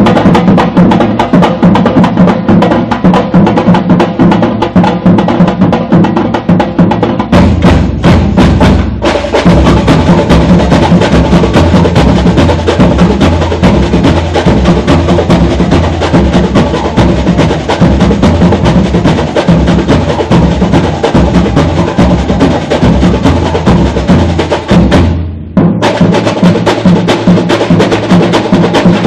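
Samba batería playing a samba-enredo groove live: deep surdo bass drums pulse under a fast, dense layer of sharp high percussion. The high percussion thins out for a moment about eight seconds in. About 25 seconds in, the section stops sharply for a brief break, then comes back in full.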